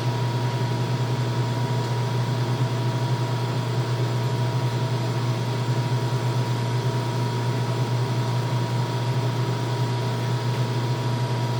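Steady machine hum with a faint high tone, unchanging throughout.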